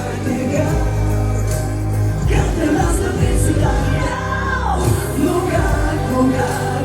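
Pop song playing: a singing voice over a steady bass line.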